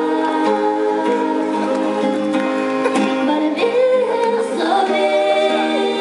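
Female singing of a slow melody in long held notes, accompanied by a strummed acoustic guitar.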